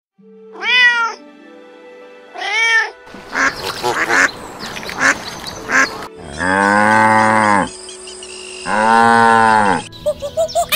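A domestic cat meowing twice, then a stretch of rougher, noisier animal calls, then a cow mooing twice in long low calls. Near the end a quick series of short high chirps begins.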